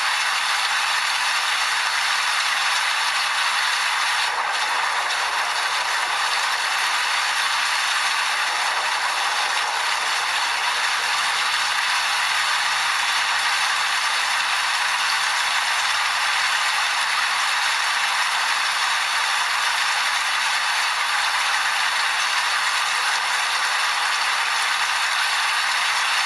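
Steady heavy rainfall, a dense even patter that holds at one level throughout.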